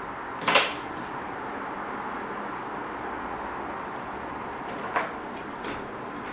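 Steady background hiss with a sharp click or knock about half a second in, and a smaller one about five seconds in.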